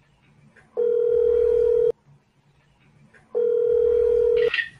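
Telephone ringback tone on an outgoing call: a steady beep about a second long, heard twice with gaps of about a second and a half, meaning the called phone is ringing and not yet answered. A brief rustle or voice comes in at the very end.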